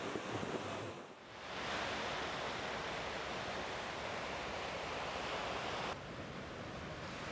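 Steady hiss of ocean surf washing onto a beach. It dips briefly about a second in and drops slightly near the end.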